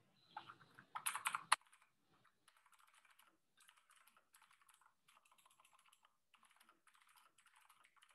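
Typing on a computer keyboard: a louder clatter of keys in the first second and a half, then faint typing in short quick runs.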